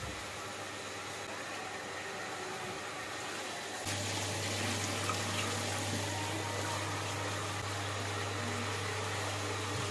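Tap water running into a metal pot and splashing into a stainless-steel sink while rice is being washed in the pot by hand.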